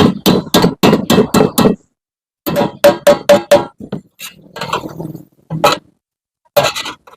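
Hammer blows on the steel of a Yamaha RX-King exhaust muffler being opened up for a new sound. They come in quick runs of about three or four a second, with short pauses between runs, and some blows ring briefly with a clear metallic tone.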